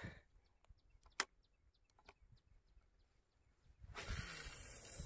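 A sharp click about a second in, then near the end about a second and a half of hissing rush that stops with another sharp click: a fishing rod being cast and line running off the reel.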